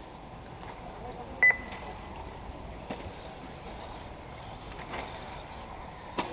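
A short, loud electronic beep about a second and a half in, over a steady low background hiss, with a few faint clicks later on.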